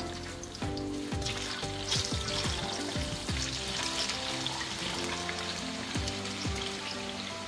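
Ripe plantain pieces going into hot cooking oil in a frying pan. The oil sizzles and bubbles, getting louder from about a second in as more pieces drop in.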